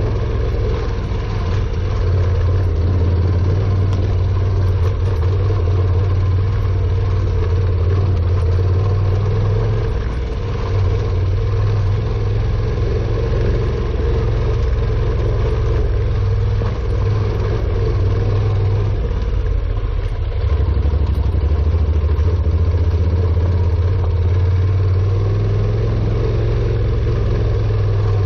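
Honda NC700X's 670 cc parallel-twin engine running steadily at low revs while riding a rough dirt track. The engine note eases off briefly about ten seconds in and again around twenty seconds in.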